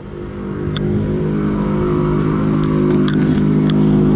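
ATV engine running under throttle. It grows louder over the first second, then holds a steady pitch, with a few sharp knocks along the way.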